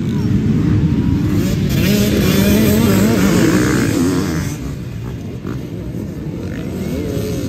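A pack of dirt bikes revving hard at full throttle as they launch off the start and race past, several engines wavering in pitch at once. The sound swells to its loudest in the middle, then drops back about two-thirds of the way through as the bikes pull away.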